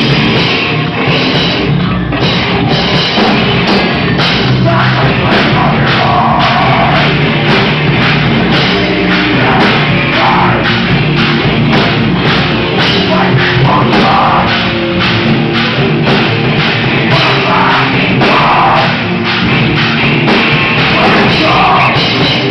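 Rock band playing loudly, with a driving drum kit and vocals coming in every few seconds. The song cuts off right at the end.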